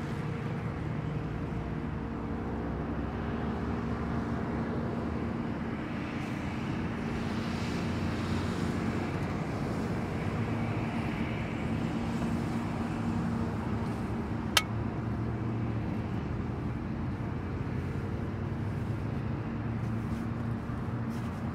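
Steady road traffic on a busy highway: vehicle engines and tyres in a continuous rumble with a low hum. A single sharp click about two-thirds of the way through.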